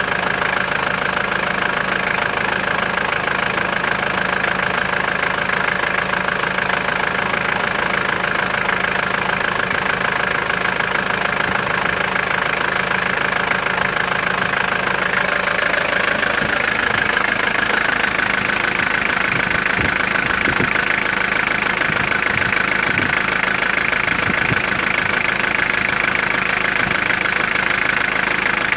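Mitsubishi Triton's 2.8-litre four-cylinder turbo-diesel engine idling steadily.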